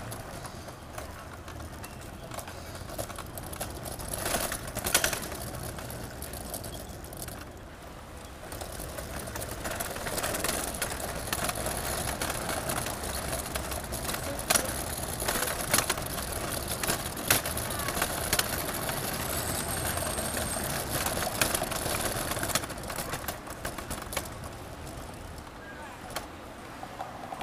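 City street ambience: traffic going by and indistinct voices of passers-by, with scattered sharp clicks and knocks.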